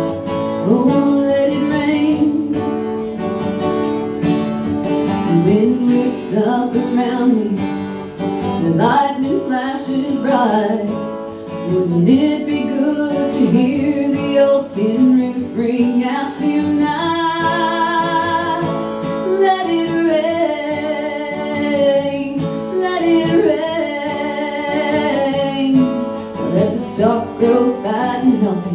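A woman sings a song to her own strummed acoustic guitar. She holds some long notes with vibrato about two-thirds of the way through.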